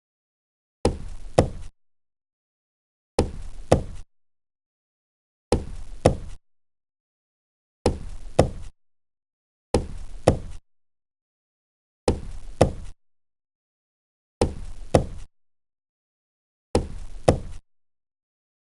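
Knocking on a table: a double knock, two sharp raps about half a second apart, repeated eight times at even intervals of a bit over two seconds, with dead silence between.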